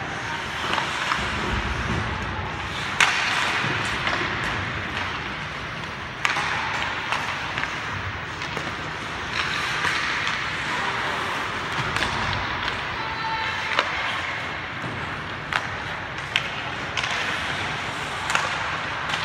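Ice hockey play: skate blades scraping on the ice, with sharp clacks of sticks and puck at irregular moments, the loudest about three seconds in.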